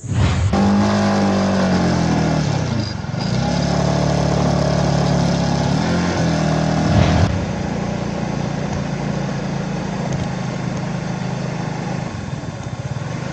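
Motorcycle engine running under way; its pitch dips and climbs back about three seconds in and again about seven seconds in as the throttle changes.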